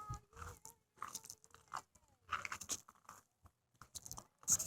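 Footsteps crunching irregularly through dry grass and weeds.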